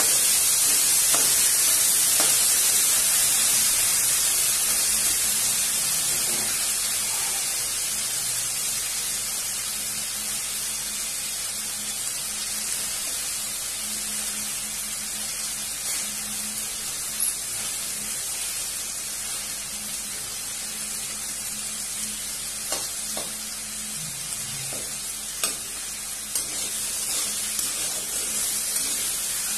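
Tomato pieces sizzling as they fry in hot oil in an aluminium kadhai. The sizzle slowly dies down, and a spatula scrapes and taps against the pan a few times in the second half.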